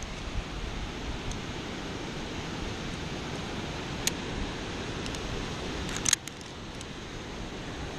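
Wind rushing over the camera microphone, with one sharp click about four seconds in and a brief clatter of clicks near six seconds.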